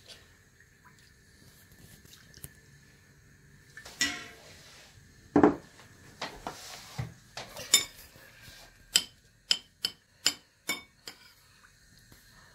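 Soup being served: a metal ladle knocking and scraping in a stainless steel pot and a ceramic bowl set down with a clatter, then a quick run of about six sharp metal clinks.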